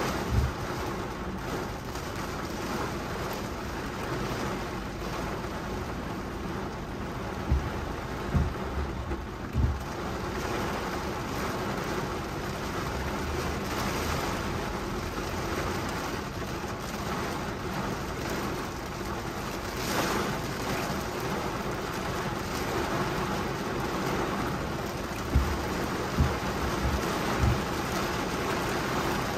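Heavy rain pelting a car's windshield and body, heard from inside the car as a steady wash of noise. A few short, low thumps come through about 8 seconds in and again near the end.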